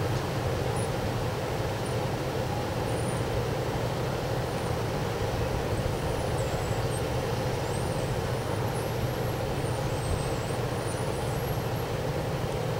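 Wind blowing steadily, a constant rushing noise with a heavy low rumble.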